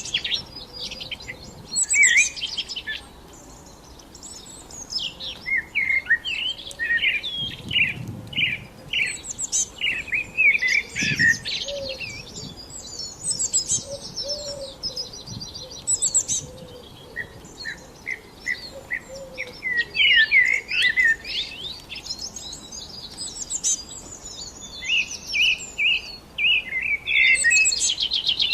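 Several small songbirds chirping and singing at once: short whistled notes, chirps and quick trills overlapping, with a rapid trill near the end.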